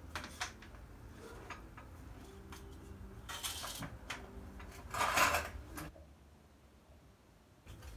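Scattered light clicks and knocks of someone moving about and handling things, with two short scuffing noises, the louder about five seconds in, over a low steady hum; it goes nearly quiet for the last two seconds.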